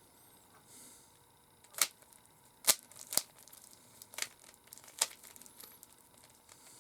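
Rubik's Cube being turned by hand: five sharp plastic clicks spread over about three seconds.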